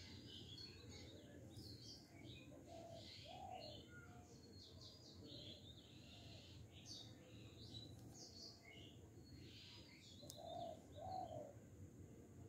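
Faint background birdsong: short high chirps throughout, and a low two-note call twice, about three seconds in and again near the end.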